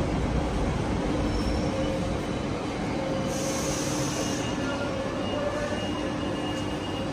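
Double-deck electric commuter train pulling into the platform: a steady rumble with faint whining tones, and a short hiss about three seconds in.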